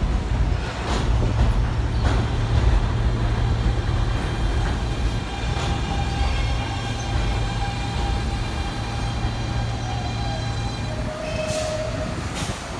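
New York City subway train moving along the elevated Astoria line track beside the platform: a steady rumble of wheels on the elevated structure, with a high whine running through the middle and easing slightly toward the end.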